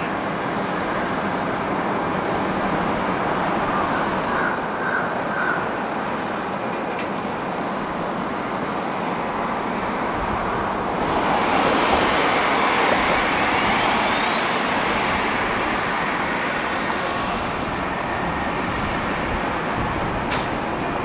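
Steady roar of airport apron noise from jet aircraft and ground equipment. About eleven seconds in it grows louder and brighter, and a thin whine rises steadily in pitch over the next several seconds.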